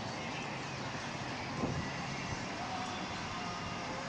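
Wooden scenic railway roller coaster train running on its track: a steady rumble with one short knock about one and a half seconds in.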